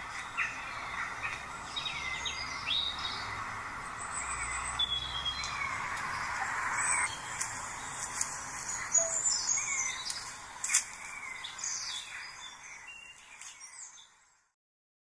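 Birdsong: several birds chirping and calling in short rising and falling whistles over a steady outdoor hiss, fading away near the end.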